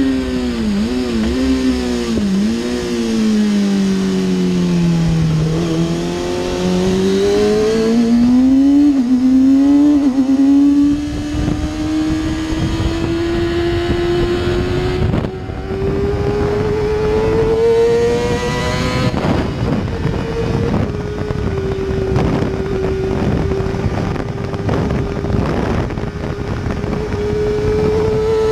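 2007 Kawasaki ZX-6R inline-four at high revs through an Akrapovič Evolution exhaust, heard onboard with wind rush. The engine pitch dips and falls over the first five or six seconds, then climbs again. It drops briefly at about nine and about nineteen seconds as the bike shifts up, and holds high revs near the end.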